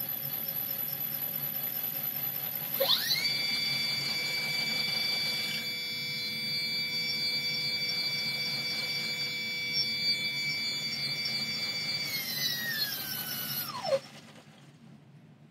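Brushless electric motor of an RC model airplane whining at a steady high pitch. About three seconds in it is throttled up, and the whine climbs; near the end the pitch falls as it winds down and stops. The motor drives a 3D-printed dummy rotary engine through leather straps rubbing on its housing.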